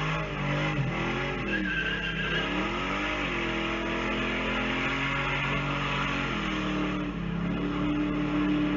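A car engine revving, its pitch rising and falling several times, then settling to a steady hum.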